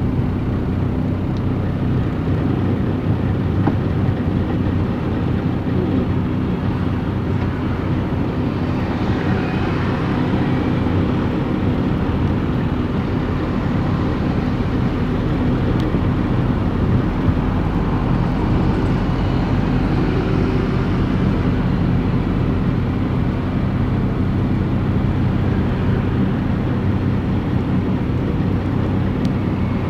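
Engine and road noise from inside a moving vehicle's cab: a steady, even engine hum under tyre noise, swelling a little about ten and twenty seconds in.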